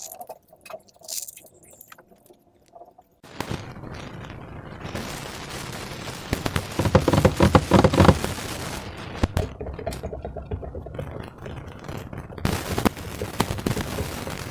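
Slime being squished and worked, with dense wet crackling and popping. A few faint clicks come first; the squishing starts suddenly a little over three seconds in and is loudest around the middle.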